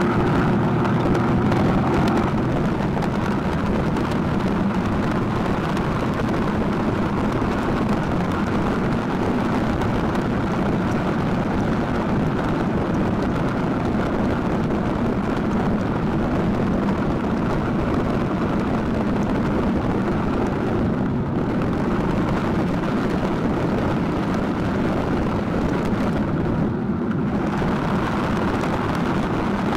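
Snowmobile running steadily while riding, a loud continuous engine and track noise with a rumble.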